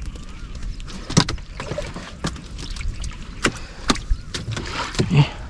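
Water splashing and dripping, with irregular knocks and rustles, as a gill net is hauled in by hand.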